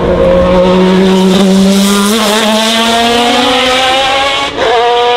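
1999 BMW V12 LMR Le Mans prototype's naturally aspirated V12 under hard acceleration, its note climbing steadily in pitch as the car passes and pulls away. There is a quick upshift about four and a half seconds in, after which the pitch climbs again.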